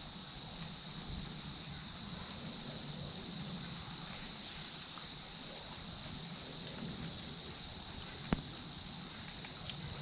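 Insects chirring in a steady, unbroken high drone, with one sharp click about eight seconds in.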